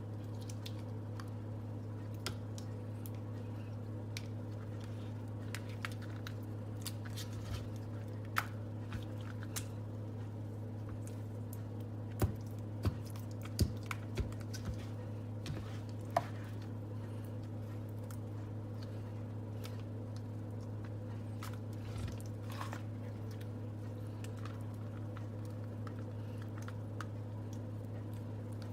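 Vaseline water slime being squeezed and poked by hand: scattered soft squishes and small clicks, with a cluster of sharper pops around the middle. A steady low electrical hum runs underneath.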